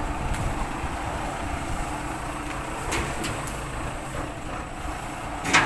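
A heavy vehicle's engine running steadily, with a few faint clicks and one short, sharp burst of noise near the end.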